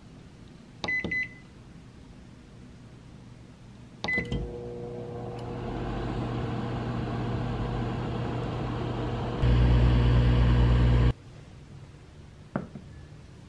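Built-in microwave oven: its control panel beeps as the dial is pressed, once about a second in and again about four seconds in, and the oven starts and runs with a steady hum. The hum grows much louder and deeper for about a second and a half, then cuts off suddenly, and a single click follows near the end.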